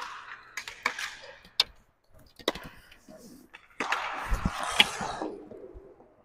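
Roller hockey play on a concrete floor: a few sharp clacks of sticks and puck in the first couple of seconds, then a scramble at the goal crease about four seconds in, a flurry of stick, pad and skate noise with a heavy thump.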